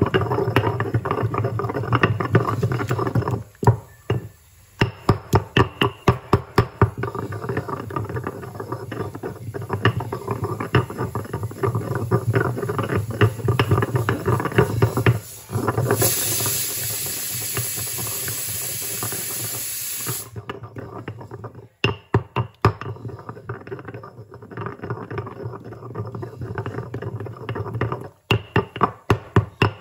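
Granite pestle pounding a wet paste in a granite mortar: quick repeated stone-on-stone thuds, a few a second, with short pauses. A steady hiss runs for about four seconds in the middle.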